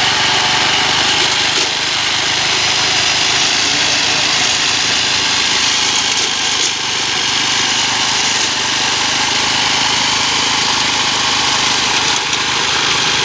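Small engine of a homemade push grass-cutting machine running steadily, with a few brief dips in level.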